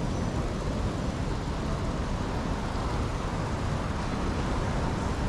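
Steady road traffic noise, a constant low rumble with no single vehicle or event standing out.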